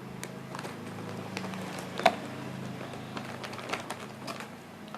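Close-up eating sounds of crispy chips: irregular sharp clicks and crunches, with one louder snap about two seconds in, over a low steady hum.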